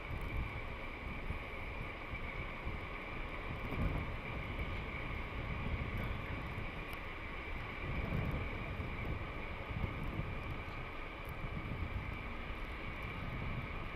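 Low, steady rumble of a DD14 rotary snowplow locomotive's diesel engines running, with wind buffeting the microphone and a faint steady high whine over it.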